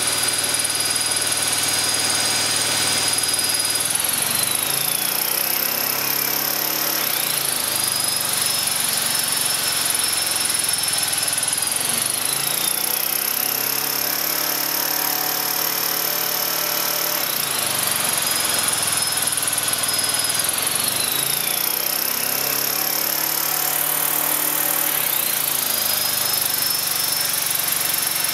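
Small OHV generator engine, fitted with a homemade exhaust-gas recirculation setup, running under load. Its pitch falls over a couple of seconds and then climbs back, a rise and fall that repeats roughly every eight seconds.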